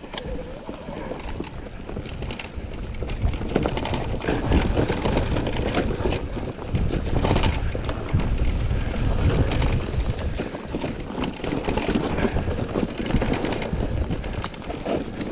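Mountain bike rolling fast down a rough, stony trail: tyres crunching over loose rock, with constant rattling and knocking clicks from stones and the bike. Wind buffets the microphone under it all.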